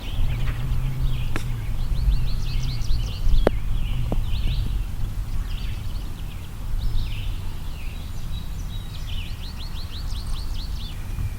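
Wind buffeting the microphone with a steady low rumble, while small birds sing in quick, repeated chirping trills. A few sharp clicks come in the first few seconds.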